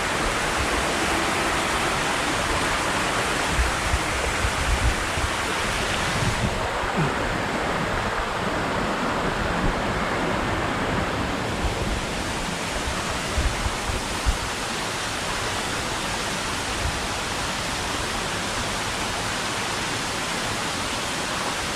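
Rushing water of a waterfall, a steady even hiss of falling water swollen by recent rain, with a few brief low bumps on the microphone.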